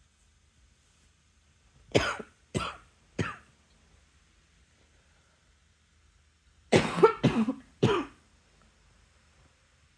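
A person coughing in two fits: three short coughs about two seconds in, then three more in quick succession about seven seconds in.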